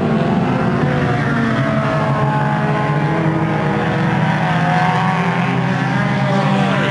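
Engines of many banger racing cars running together on the track: a steady, loud mass of engine noise with several engine pitches heard at once.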